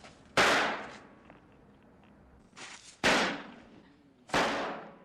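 Firecrackers going off one after another: three loud bangs, the first just under half a second in, then about three and four and a half seconds in, each ringing out over about half a second. A short hiss comes just before the second bang.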